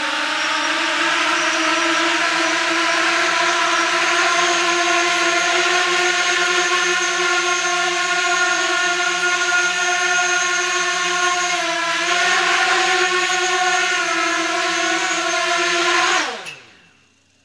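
Mini octocopter's eight 1804 2400kv brushless motors spinning 5030 carbon props in a hover: a loud, steady high-pitched buzz made of several pitches at once, with a brief wobble about twelve seconds in. Near the end the motors are throttled down and the buzz falls in pitch and stops.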